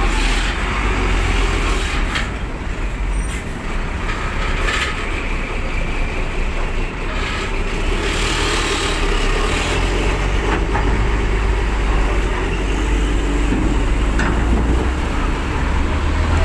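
Large truck's engine running with a steady deep rumble as it moves off a ferry ramp, with a few short knocks.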